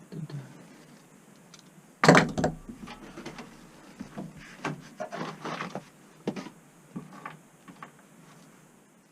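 A loud knock about two seconds in, then a run of irregular clatters and scrapes as tools and metal furnace parts are handled.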